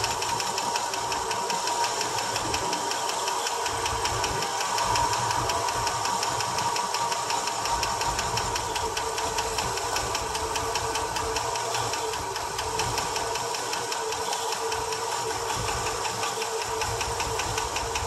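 International Harvester 392 V8 running on fuel poured by hand into its four-barrel carburetor, with a light, fast, even lifter tick over the steady engine note. The tick comes from hydraulic lifters that have bled down after sitting and still need to pump back up.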